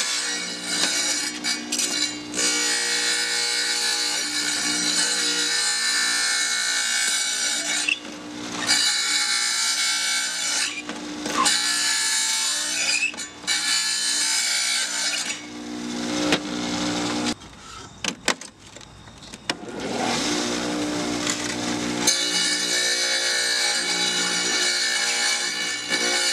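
Wet tile saw's diamond blade grinding through a glass bottle, the motor running steadily under a harsh, high grinding noise. The grinding drops out briefly a few times, and for about three seconds past the middle.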